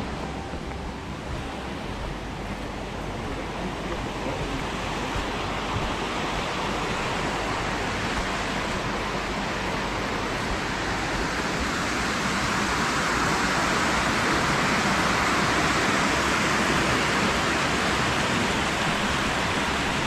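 Rushing water of a small woodland stream, a steady hiss that grows gradually louder over the second half.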